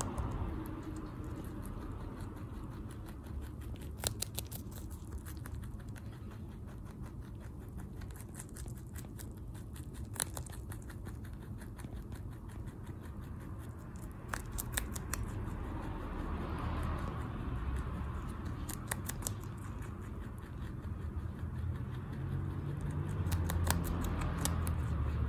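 Netherland Dwarf rabbit chewing a raw broccoli stalk very fast: a rapid, continuous run of crisp crunching clicks, with louder crunches every few seconds.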